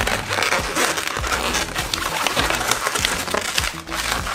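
Inflated latex 260 modelling balloons squeaking and rubbing against each other and the hands as they are twisted into a pinch twist, a quick run of short squeaks and crinkles.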